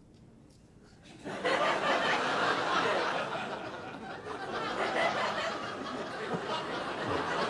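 Studio audience laughing, breaking out suddenly about a second in and carrying on.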